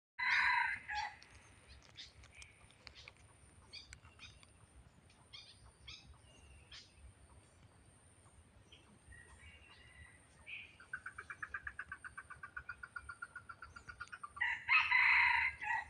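Hybrid red junglefowl decoy cock crowing: a short harsh crow right at the start and another near the end. In between comes a fast run of pulsed notes, about seven a second, with small bird chirps scattered through.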